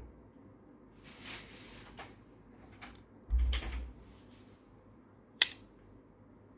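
Handling noises: a short rustle about a second in, a low bump about halfway through, and one sharp click near the end, the loudest sound.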